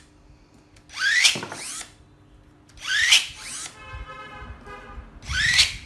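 36V cordless electric pruning shears' motor whining up in three quick bursts as the jaws snap shut through branch sections, each a short rising whine. A fainter, steadier squealing tone comes between the second and third cuts.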